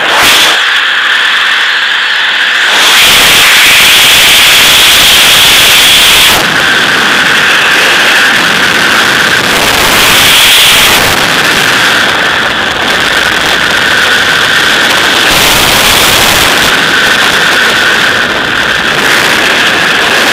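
Loud, steady rush of freefall wind buffeting a skydiver's helmet camera microphone, with a faint whistle in it; it swells a few seconds in.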